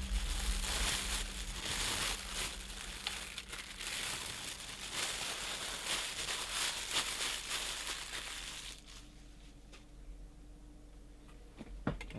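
Packaging being handled, crinkling and rustling, with many small crackles; it stops about nine seconds in, leaving quiet room tone.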